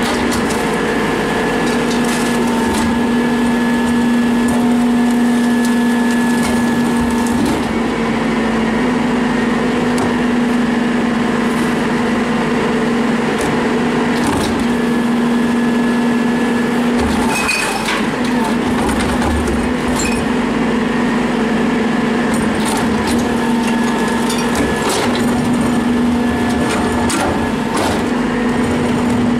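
Isuzu garbage truck running with a steady hydraulic hum from its New Way Diamondback rear loader, the tone breaking off and resuming several times as valves change. Knocks and clatter come over it as a wheeled cart is tipped into the hopper, thickest a little past halfway.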